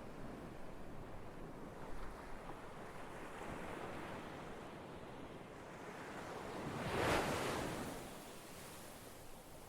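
Ocean surf washing steadily, with one wave swelling to its loudest about seven seconds in and then falling away.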